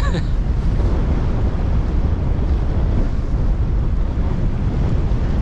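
Wind buffeting the microphone: a steady, heavy low rumble with a rushing hiss over it.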